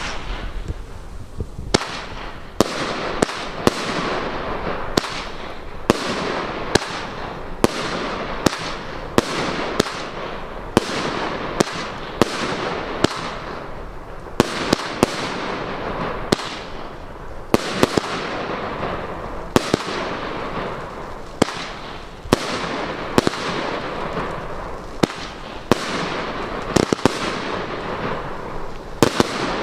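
A 20-shot Funke Gold-Blue Variations firework cake firing in sequence: a sharp bang about every second, with a steady crackling hiss of the bursts between them.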